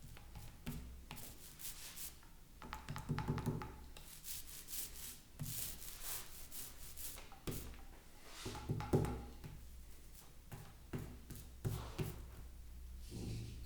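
Hand rubbing and scraping on a wooden speaker cabinet in irregular strokes, the louder ones about three and nine seconds in, with a few light knocks and a steady low hum underneath.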